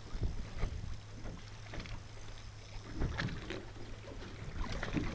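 A fishing boat's engine idling with a steady low hum, with a few brief sharp sounds on top, the clearest about three seconds in and near the end.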